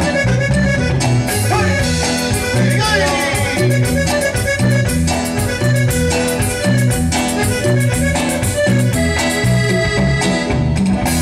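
Live duranguense band music played loud: a fast, steady beat with drum hits and a bouncing bass line under the melody.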